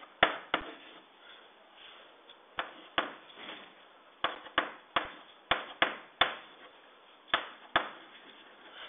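Chalk on a blackboard, writing: about a dozen sharp, irregular taps as the chalk strikes the board, some in quick pairs, with faint scratching between them.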